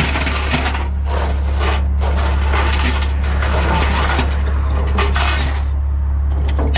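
Steel tie-down chains clanking and rattling as they are fed link over link into a trailer's chain box, a run of jangling metal clatter that dies down to a few light clicks near the end. A steady low hum runs underneath.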